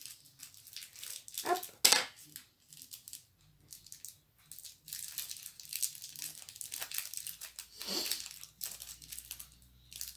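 Plastic packaging crinkling and crackling as it is handled and cut open with scissors, in short irregular rustles, with one louder crackle about two seconds in.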